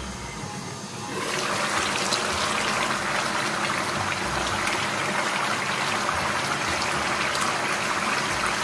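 Pork ribs braising at a boil in a pot of brown, sauce-thick liquid: steady bubbling that grows louder about a second in.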